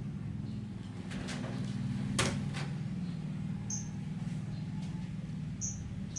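Light knocks and rattles from a baby macaque clambering on the wire mesh of its cage, the loudest a sharp knock about two seconds in, over a steady low hum. Two short high chirps come later.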